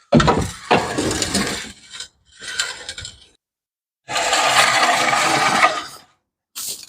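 Bursts of mechanical ratcheting and metal clatter from hand tools at work on a 904 transmission during its removal. There are four bursts with silent gaps between them, the longest and steadiest about four seconds in.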